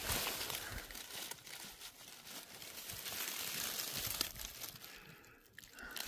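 Dry leaf litter and twigs rustling and crackling as a gloved hand brushes through them, with many small crackles; it dies down briefly near the end.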